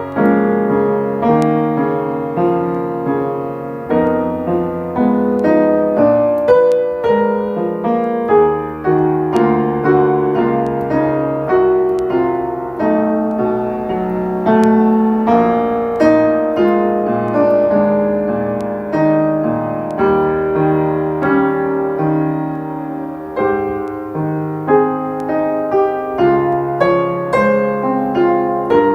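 Solo piano playing a song, a melody over chords, with notes struck continuously throughout.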